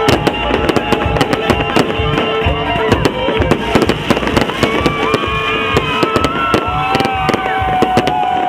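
A fireworks display: a dense run of bangs and crackles, with drawn-out pitched tones that hold for several seconds and bend at their ends.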